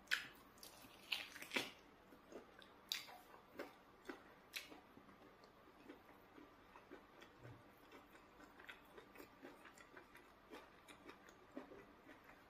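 Quiet, wet eating sounds of eba and soup eaten by hand: short lip smacks and mouth clicks. They are sharpest and most frequent in the first five seconds, then become fainter and sparser.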